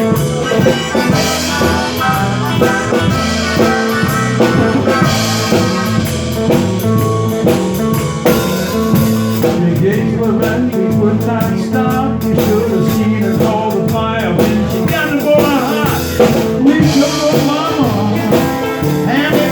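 Blues band playing an instrumental break: guitar and drums keep a steady beat while a lead instrument bends notes up and down in the second half.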